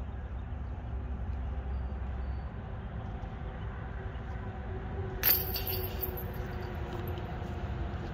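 A disc striking the chains of a disc golf basket about five seconds in: a single sharp metallic clash with a brief jingling ring, over a steady low rumble.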